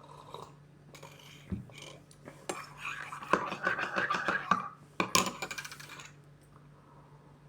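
Cutlery clinking and clattering against dishes: a busy run of sharp clicks and knocks lasting several seconds, densest and loudest in the middle.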